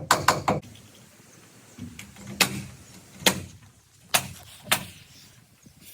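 Sharp knocks: a quick run of several at the start, then single knocks at uneven gaps of roughly a second.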